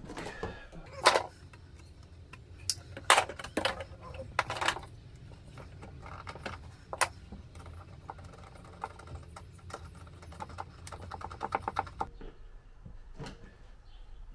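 Corrugated bilge-pump hose being handled and pushed into place inside a jetski's fibreglass hull compartment: scattered knocks and rustles, then a quick run of small ratcheting clicks about three-quarters of the way through, a zip tie being pulled tight on the hose.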